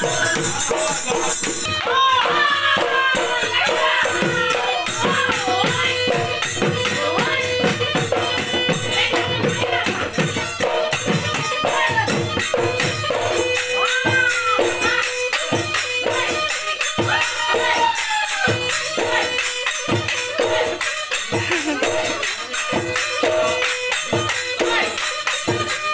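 Live Husori Bihu music: a dhol barrel drum beats a fast, driving rhythm with small hand cymbals jingling along, and a high wavering melody line runs over the beat.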